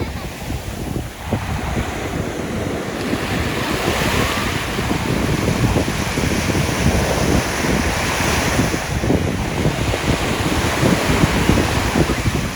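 Ocean surf washing on a beach, swelling and easing, with strong wind buffeting the microphone.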